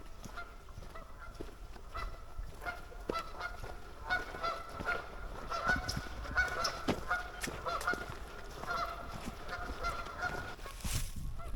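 A chorus of many overlapping honk-like animal calls, repeated in quick succession and thickest in the middle of the stretch, over a low outdoor rumble.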